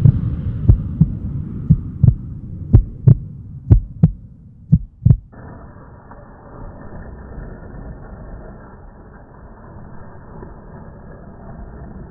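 Heartbeat sound effect: paired low thuds about once a second, ending about five seconds in. A steady low hum follows.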